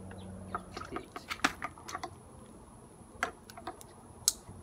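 Two-gallon hand-pump garden sprayer being pumped up to pressure: irregular sharp plastic clicks and knocks from the pump handle and plunger. A low hum stops about a second in.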